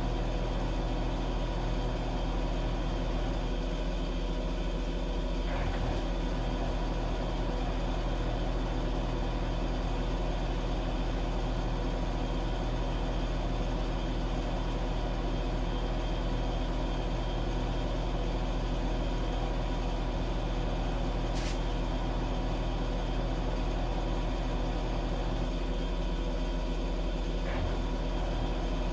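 Washing machine running with a steady motor hum, broken by a few brief clicks, the sharpest about two-thirds of the way through.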